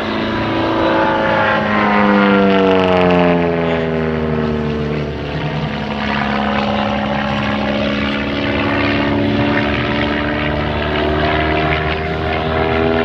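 Piston engine and propeller of a One Design aerobatic monoplane in flight, manoeuvring overhead. The engine note falls in pitch between about two and five seconds in, then holds steady and rises slightly near the end.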